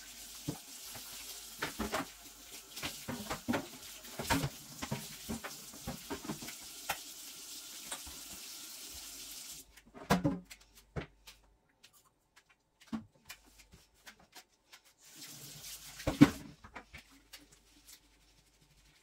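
Water running from a kitchen tap into the sink, with repeated knocks and clatters. The water stops about halfway through and more knocks follow. A short second run of water comes near the end, with one loud clunk.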